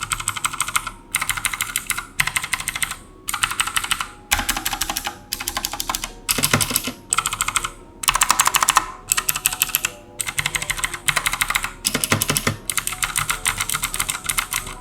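Rapid typing on a Gamdias Hermes E3 60% mechanical keyboard with clicky blue switches, which the reviewer takes for Outemu switches: bursts of quick keystrokes, each about a second long, with short pauses between them.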